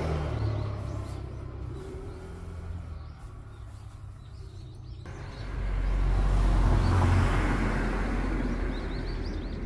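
Rumble of a passing car in road traffic, fading away and then swelling again about halfway through as another vehicle goes by, with a few faint bird chirps near the end.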